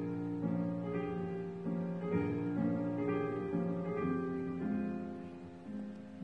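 Slow instrumental background music of held keyboard chords changing about once a second, softening toward the end.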